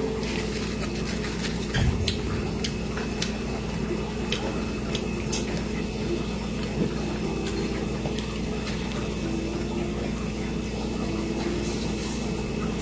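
Mouth sounds of chewing crusty grilled panini toast with stretchy melted cheese: scattered small crunching clicks, over a steady low hum. A brief low thump about two seconds in.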